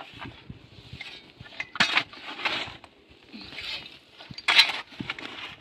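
A long-handled spade being driven into stony, gravelly soil: several gritty chops and scrapes of metal on earth and rock, the loudest strike about four and a half seconds in.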